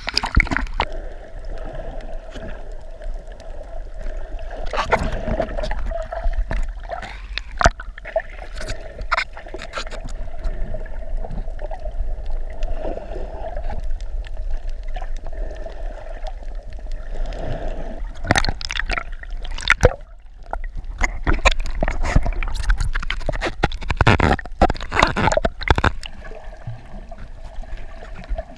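Seawater sloshing and gurgling around a camera at and below the surface, with repeated splashes and bubbly crackles, heavier around a quarter of the way in and again in the second half. A steady faint hum runs underneath.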